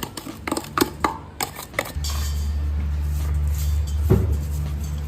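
Clinks and knocks of kitchen utensils against a bowl and dishes while food is mixed. About two seconds in, background music with a low steady bass comes in.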